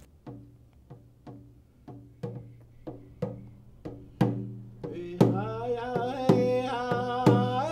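Frame hand drum beaten with a stick in a steady beat, about two strokes a second. About five seconds in, a voice joins, singing over the drum.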